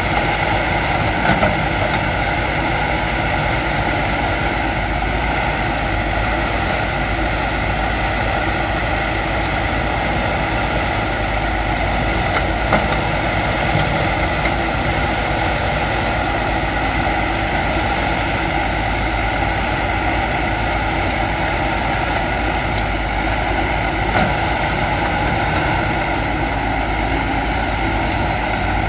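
Diesel engine of heavy machinery running steadily, with a few faint brief knocks.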